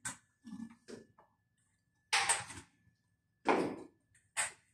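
Metal quad cane and shoes set down on concrete stair steps: a few short scuffs and knocks, the two loudest about two and three and a half seconds in.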